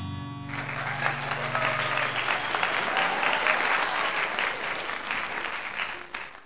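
Crowd applause, dense clapping that starts about half a second in as the last guitar notes die away, and fades out near the end.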